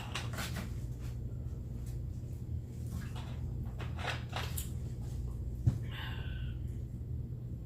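A steady low hum with scattered faint clicks and rustles, and one sharp knock a little before six seconds in, followed by a brief high squeak.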